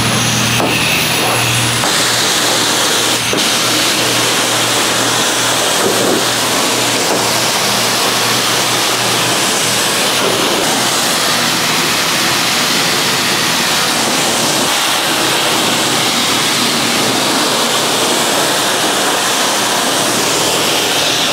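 High-pressure wand of a self-serve car wash spraying water into a pickup truck bed: a loud, steady hiss of spray with a steady low hum underneath.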